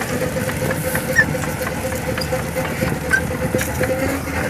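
Self-propelled howitzer's diesel engine idling steadily, with a constant hum.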